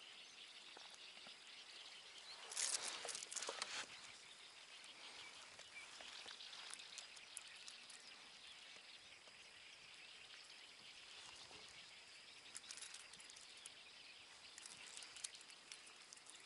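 Faint outdoor quiet with brief rustles and small clicks of hands handling a fishing rod, reel and line: one longer rustle about three seconds in and a few light clicks near the end.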